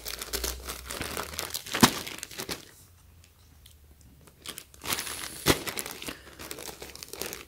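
Clear plastic packaging bags of Hanes sock and boxer-brief packs crinkling as they are handled and shifted about, in two spells with a quieter gap in the middle and a few sharp crackles.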